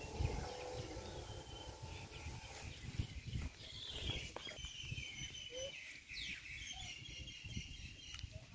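Outdoor ambience: small birds chirping with thin, high, broken calls, mostly in the second half, over a low, uneven rumble.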